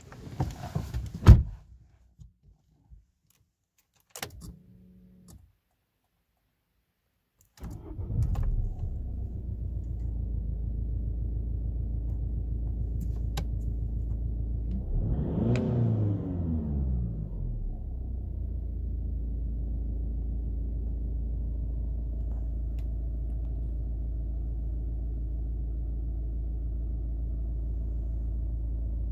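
A few clicks and knocks, then about eight seconds in the Volkswagen Tiguan's 2.0 TDI four-cylinder diesel engine starts and settles into a steady idle, heard from inside the cabin. Around fifteen seconds in it is revved once, the pitch rising and falling back to idle.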